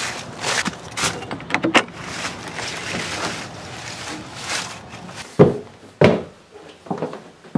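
Footsteps through dry fallen leaves, with rustling and handling clicks. About five seconds in come two loud thumps about half a second apart from a wooden door, followed by a couple of lighter knocks.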